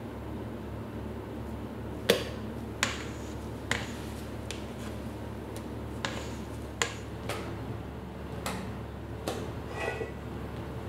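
Spatula knocking and scraping against a stainless steel mixing bowl while stirring buttercream: about nine sharp, irregular taps, some with a short metallic ring, starting about two seconds in, over a steady low hum.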